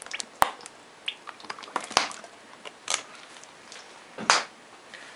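Sunflower oil being poured from a bottle into a multicooker's nonstick bowl, with scattered light clicks and taps of the bottle being handled; the loudest is a short knock about four seconds in.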